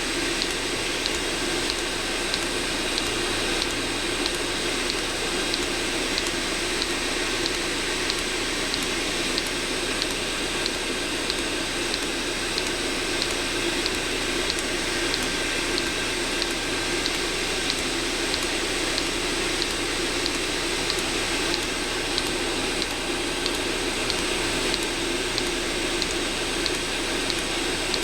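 Eberspacher D1L diesel heater in its start-up cycle: the combustion-air fan running with a steady whooshing hum while the fuel dosing pump ticks in an even rhythm, before the burner has lit.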